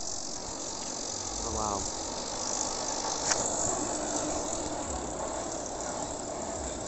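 Steady outdoor background hiss with uneven low rumble, a short rising chirp about one and a half seconds in and a single sharp click a little past three seconds.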